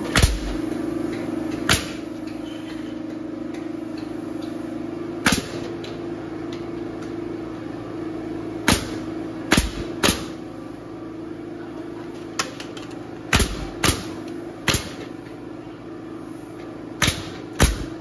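Hitachi pneumatic coil nailer firing nails one shot at a time, about a dozen sharp cracks at irregular intervals, some in quick pairs. A steady low hum runs underneath.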